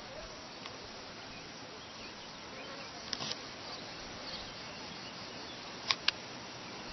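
Insects buzzing in summer grassland, with a few sharp clicks about three seconds in and a louder close pair of clicks near the end.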